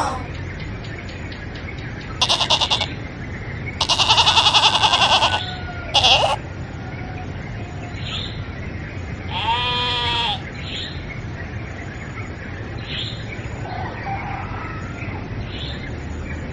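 Goats bleating: four separate wavering bleats, the second the longest and the last a rising-and-falling call, over a steady background noise with faint short chirps in between.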